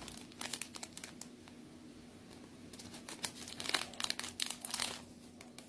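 Clear plastic wrapping crinkling and crackling as it is handled, in a string of short crackles that thicken into a louder cluster a little past halfway.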